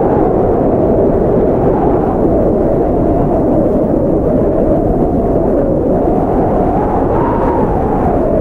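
Strong blizzard wind blowing steadily, a deep rushing noise with a howl that slowly rises and falls in pitch.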